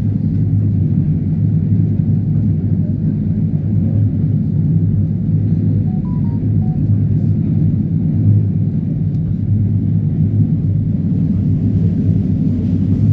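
Train running, a steady low rumble that holds evenly without a break.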